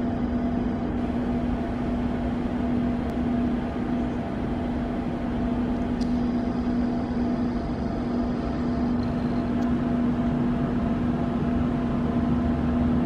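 Steady mechanical drone of an underground metro station platform: a constant low hum over a broad rumble, growing slightly louder near the end.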